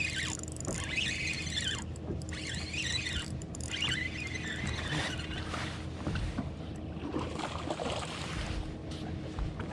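A boat's motor running with a steady low hum, with high wavering tones over it during the first few seconds.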